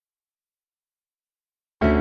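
Silence, then background music led by piano starts suddenly near the end.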